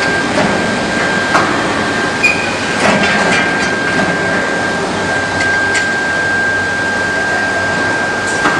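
Industrial induction melting furnace running: a steady high-pitched whine over a constant noisy background, with several sharp knocks scattered through.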